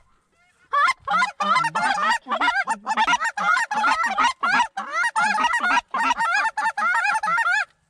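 Goose honking: rapid, loud calls, many overlapping, starting about a second in and running almost without a break.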